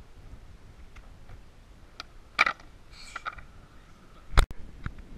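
Skateboard knocks and clacks on a concrete bowl as a skater bails: a sharp clack about two and a half seconds in, a few smaller knocks, then the loudest bang about four seconds in as the board and the falling skater hit the concrete.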